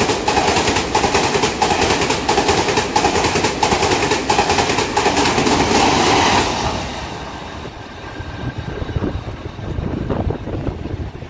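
Taiwan Railways push-pull Tze-Chiang express passing at speed without stopping, its wheels clattering in a fast, steady clickety-clack. The noise drops off sharply about six and a half seconds in as the tail of the train goes by, leaving a fading rumble and wind.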